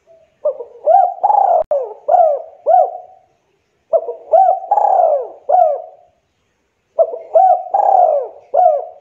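Spotted dove cooing in three phrases a few seconds apart. Each phrase is a run of several short coos that rise and fall in pitch, the middle coo the longest.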